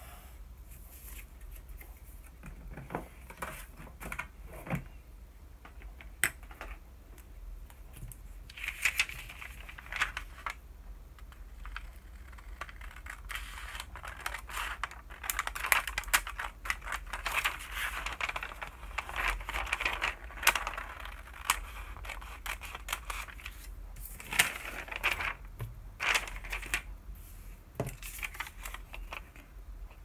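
A pencil drawing on paper, then scissors cutting through a sheet of vellum (tracing paper) in runs of crisp snips, with light clicks of paper and tools being handled on the desk.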